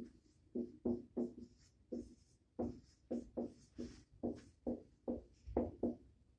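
Dry-erase marker writing on a whiteboard: a quick run of short strokes, two or three a second, each a brief squeak that dies away quickly.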